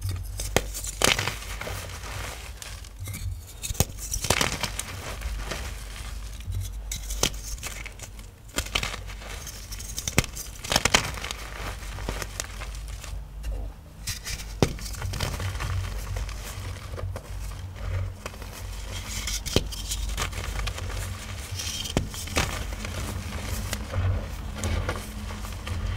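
Powdery oxichalk blocks being crushed and crumbled: a run of crunches and crackles at uneven intervals, over a steady low hum.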